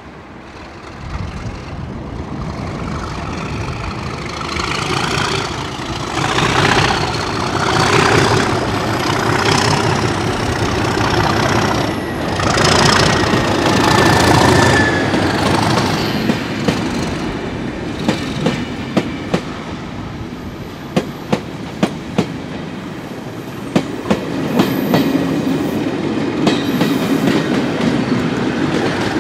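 Class 37 diesel locomotive with an English Electric V12 engine running as it passes close by hauling test coaches. The coaches' wheels then click sharply over rail joints as they go by, and a second Class 37's engine grows louder near the end.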